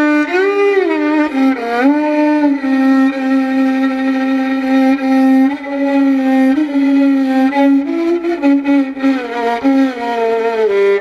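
Background music: a single sliding melody line that holds one long low note through the middle, then moves on with gliding ornaments.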